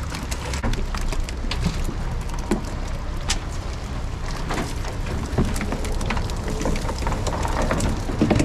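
Herring-filled cast net hauled up out of the water, water dripping and pattering off the mesh with many scattered small taps and clicks, over a steady low rumble.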